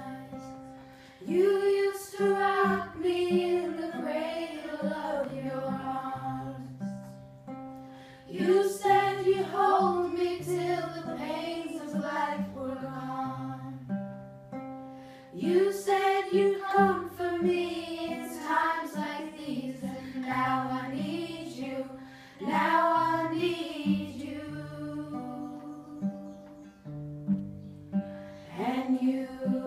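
A group of girls singing a song together to acoustic guitar accompaniment, with a new sung phrase starting about every seven seconds.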